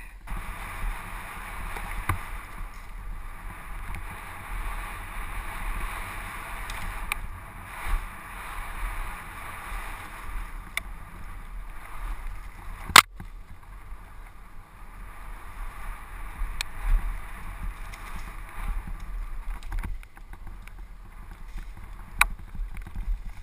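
Downhill mountain bike descending a dirt woodland trail, heard from a camera on the handlebars: a steady rush of wind and tyre noise, broken by several sharp clacks of the bike over bumps, the loudest about halfway through.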